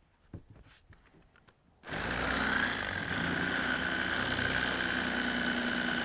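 Electric fillet knife switched on about two seconds in, its motor running with a steady high whine as the blades cut through a northern pike fillet.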